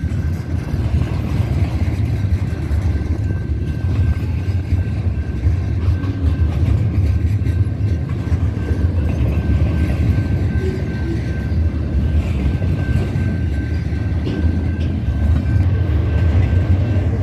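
Double-stack intermodal freight train passing over a grade crossing: a steady, even low rumble of container well cars rolling by on the rails, with a faint steady high tone through it.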